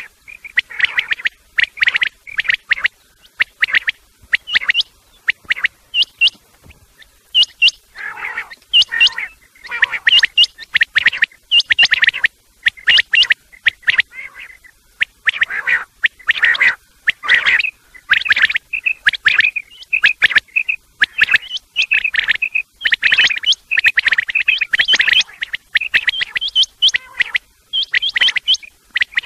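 Quail calling loudly: many short, sharp chirping calls in quick runs, several overlapping, with the female's 'kirak' call mixed in with the males' calls.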